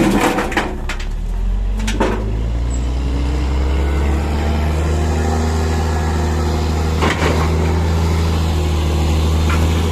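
Hino 'Lohan' dump truck's diesel engine running loud and steady, its pitch climbing a little over the first few seconds and then holding. A few sharp knocks sound near the start, about two seconds in and about seven seconds in.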